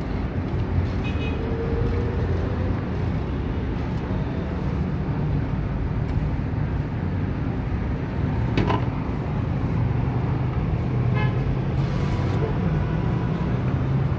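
Busy street traffic: a steady rumble of vehicle engines with a few short horn toots and a sharp knock about two-thirds of the way through.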